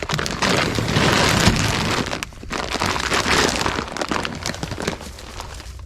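Plastic feed sack being handled, loud crinkling and rustling, with a short pause about two seconds in and easing off near the end.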